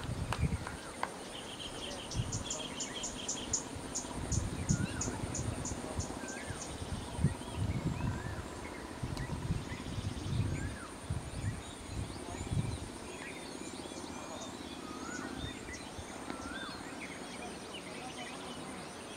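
Outdoor ambience: birds chirping, with a quick series of repeated chirps about two seconds in and scattered calls after, over a steady high-pitched insect drone. Low rumbling comes and goes through the first two-thirds.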